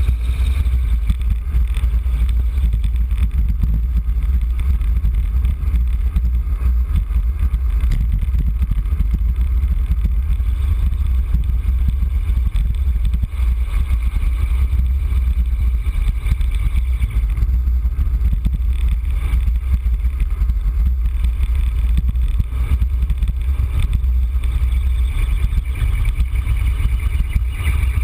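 Wind rushing over the microphone of a camera carried on a road bike descending at speed: a steady, loud low rumble.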